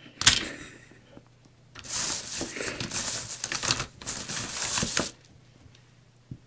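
A knock just after the start, then loud scratchy rustling of fingers rubbing across a cloth tablecloth, in two stretches with a short break between them, stopping suddenly near the end.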